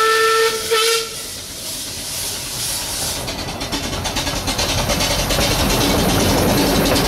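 A 12¼-inch gauge steam locomotive sounds its whistle, which breaks off and gives a short second toot about a second in. Then come steam hiss and quick, even exhaust beats that grow louder as the engine approaches and passes close by.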